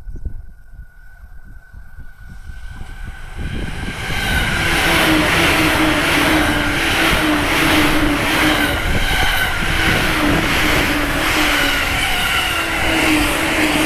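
E235-1000 series electric train approaching and passing at speed, building up over the first few seconds and then loud and steady, with a rhythmic clatter of wheels on the rails and a steady hum under it.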